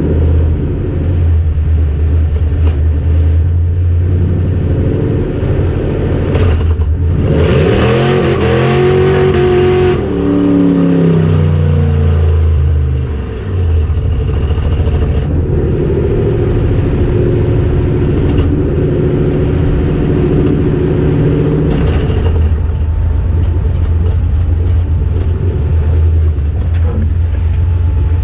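Car engine running with a steady low drone, then accelerating hard about seven seconds in, its pitch climbing and then falling away by about thirteen seconds, before settling back to a steady drone.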